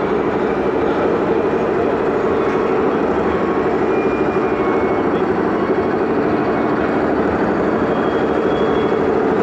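RC model excavator running steadily, a constant machine drone while it swings and works its boom and arm.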